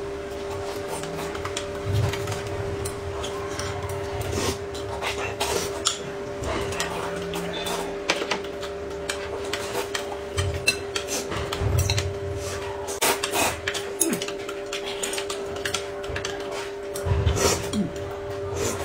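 Eating at a table: noodles slurped from a bowl, with scattered clicks of a spoon against a glass cup and chopsticks against a ceramic bowl, over a steady low hum.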